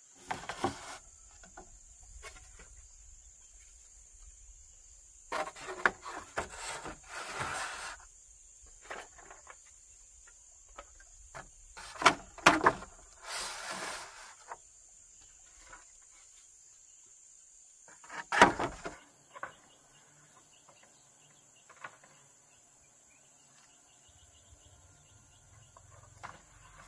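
Bamboo knocking and scraping in several separate bouts, the sharpest knock about two-thirds of the way in. A steady high-pitched insect chirring runs underneath.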